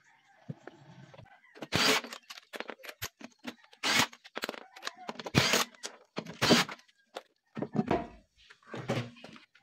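Cordless impact wrench run in about six short bursts on a car wheel's lug nuts, loosening them to take the rear wheel off.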